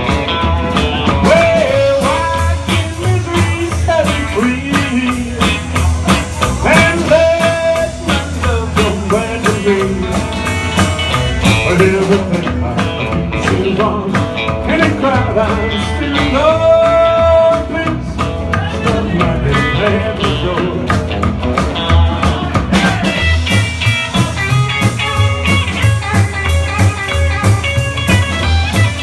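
Blues band playing an instrumental break: a lead guitar line with bent, held notes over a steady bass and drum beat.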